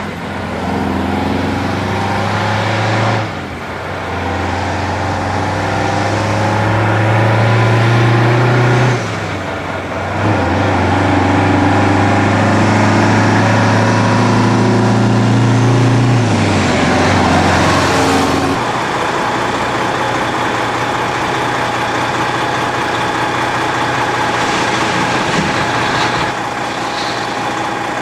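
Detroit diesel engine of a Kenworth chip truck and trailer pulling hard under load, its deep steady note dipping briefly about 3 and 9 seconds in as it changes gear. The note drops away after about 17 seconds, leaving a steadier mechanical engine noise for the rest.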